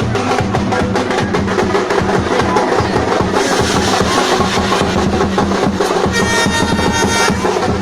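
Loud, fast drumming with dense percussion strikes. About six seconds in, a held tone joins for about a second and a half.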